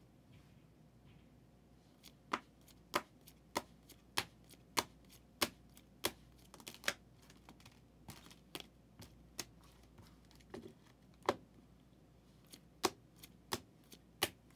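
Sharp clicks and clacks of trading cards in hard plastic holders being handled and set against one another, starting about two seconds in and coming roughly every half second at first, then unevenly.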